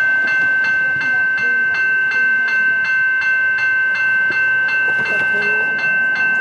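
Railway level crossing bell ringing rapidly, about three strikes a second, each strike ringing on in a steady metallic tone. It is still ringing with the lights flashing as the boom gates lift to clear the crossing.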